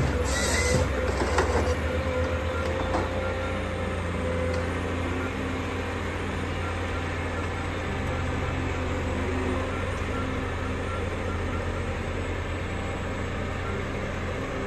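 A heavy wood-processing machine's engine running steadily under load, with a few knocks and clatters in the first few seconds.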